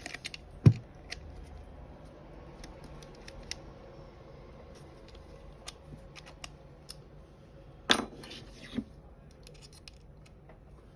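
Small metal tools being handled: scattered light clicks and taps as a drill bit is picked up and fitted into a small drill's chuck, with a sharp knock about a second in and a louder clatter near the end.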